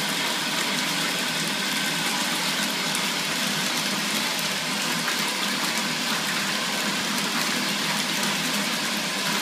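A stream of water pouring steadily into a plastic storage tote and splashing into the shallow water at its bottom as the tote fills.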